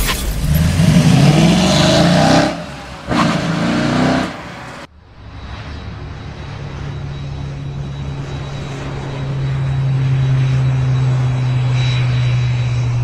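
Motor vehicle engine: loud and rising in pitch for the first couple of seconds, then, after an abrupt cut about five seconds in, a steady low drone that slowly climbs in pitch and loudness.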